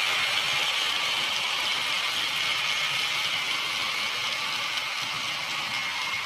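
HO scale model freight train running over the layout's track, with a steady rolling noise that slowly fades as the wagons move away.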